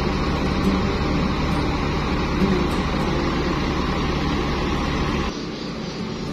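Diesel engine of a large coach bus idling close by, a steady low rumble. About five seconds in it gives way to a quieter, lighter hum of idling buses.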